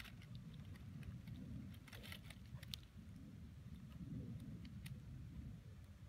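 Faint scratching and small ticks of a fine-tip pen drawing on sketch paper, thickest about two seconds in, over a steady low rumble.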